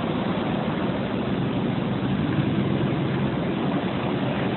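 Steady running machinery with a low engine hum, unchanging throughout.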